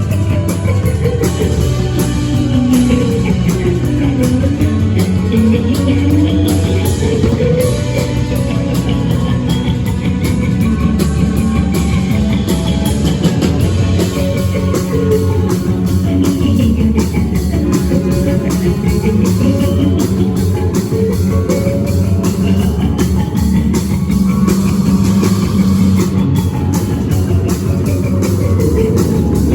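Live rock band playing with guitar and drum kit, loud and steady throughout, with a line that glides slowly up and down in pitch over several seconds at a time.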